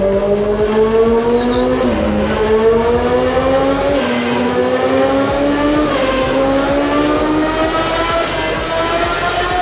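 A Honda CBR900RR Fireblade's inline-four engine is revving hard under load, its pitch climbing steadily. There are upshifts about two, four and six seconds in, where the pitch drops briefly and then climbs again.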